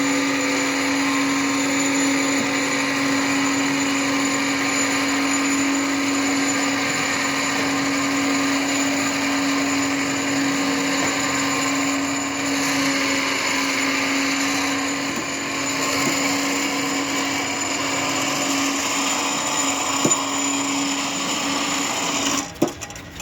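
Mini crane's electric wire-rope hoist motor running steadily with a constant whine while it lifts a loaded trolley of bricks. It cuts out about 22 seconds in, as the load reaches the top.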